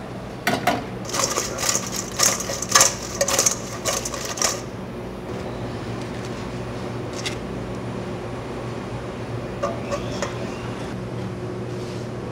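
Freshly fried battered fish rattling and scraping in a stainless steel bowl as it is handled, a quick run of clatter lasting about four seconds. Then a steady low hum of kitchen machinery with a few light clicks of metal tongs.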